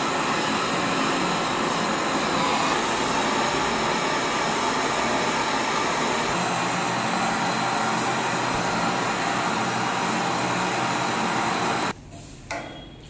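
Steady hiss of a handheld butane gas torch flame brazing a refrigerant leak on a window air conditioner's copper coil. The hiss cuts off sharply near the end.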